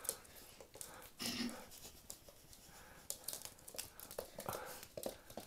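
A small terrier's claws clicking faintly and irregularly on a hard floor as it moves about, with a brief soft murmur about a second in.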